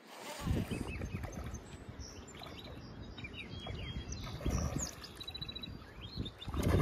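Wind buffeting the microphone with a low rumble, while small birds chirp and trill. Near the end a much louder rush of noise swells up.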